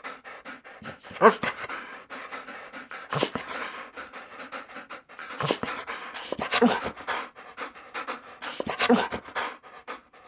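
A dog panting: a long run of quick short breaths, with a few louder ones every couple of seconds.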